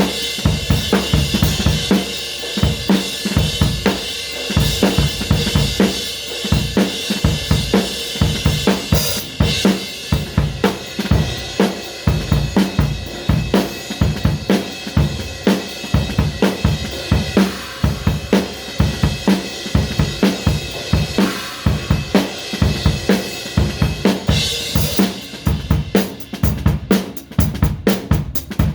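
Drum kit played in a steady, busy groove of bass drum and snare with hi-hat, a cymbal crash twice, and a run of fast strokes near the end.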